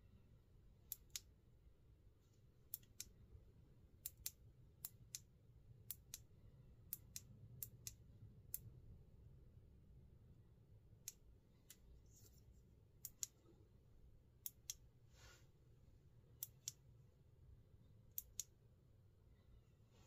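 Sharp clicks from the Klarus E5 pocket flashlight's switch being pressed and released repeatedly, mostly in quick pairs.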